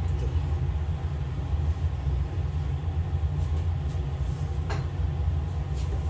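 Steady low rumble of a running machine, with a single light clink about three-quarters of the way through as a plate is set down on a table.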